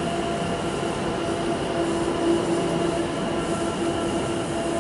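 A pair of c2c Class 720 Aventra electric multiple units arriving at a platform: a steady electric hum with several held tones over the running noise of the wheels on the rails.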